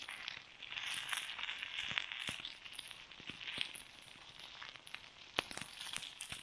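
Potatoes, eggs and chicken breast sizzling in a frying pan over a campfire as they are stirred, with a few sharp clicks and crackles.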